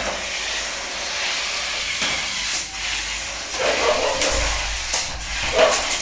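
Two battery-powered RC stunt cars running on a tile floor: a steady hissing whir of small electric motors and wheels, with a few sharp plastic knocks as the cars ram into each other.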